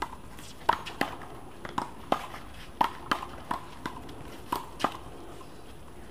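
A rubber handball rally, with the ball smacked by hand, hitting the wall and bouncing on concrete: about ten sharp, ringing smacks, often in quick pairs, that stop about five seconds in.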